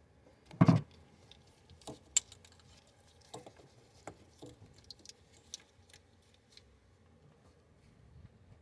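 A heavy thump about a second in, then scattered light metallic clicks and clinks of hand tools being handled.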